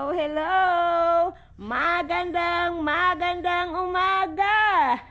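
A high voice singing a melody in long held notes, with a short break about a second and a half in.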